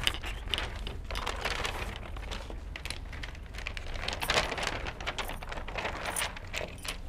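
A large paper chart being handled and pressed onto a whiteboard: paper rustling and crinkling with many scattered small clicks and taps, busiest about a second in and again past the middle.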